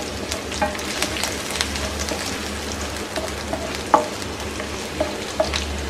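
Finely chopped garlic sizzling and crackling in a little hot oil in a non-stick frying pan, with a spatula stirring it and giving a few sharper ticks now and then.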